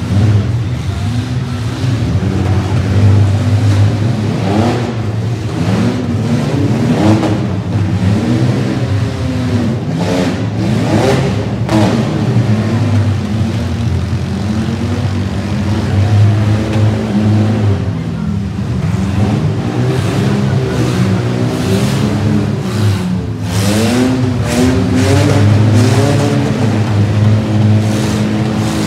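Several demolition-derby compact pickup engines running and revving together, their pitch repeatedly rising and falling as the trucks accelerate and back off. A few sharp bangs stand out, typical of trucks ramming each other.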